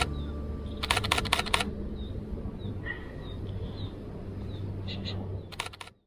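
Three bursts of rapid camera shutter clicks from a Nikon Z50 firing continuous shots: one at the start, a longer one about a second in, and a short one near the end. Short, high bird chirps repeat faintly in the background.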